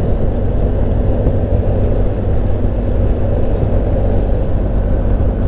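Steady riding noise from a BMW GS Adventure motorcycle cruising at about 50 mph: wind rush over the microphone mixed with engine and road noise, with no change in pace.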